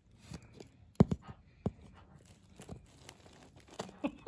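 Scissors cutting through clear packing tape along the seam of a cardboard box: a string of short snips and crackles, the sharpest about a second in.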